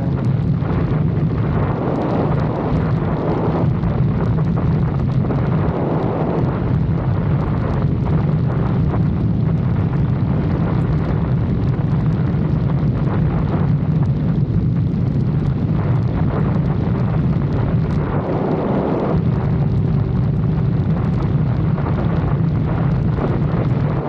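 Lexus IS 250 driving at a steady speed: loud, constant wind rush over the microphone and road noise, with a steady low engine drone underneath.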